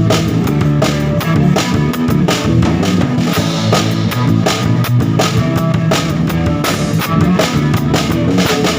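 Rock band playing: drum kit keeping a steady beat over bass and guitar.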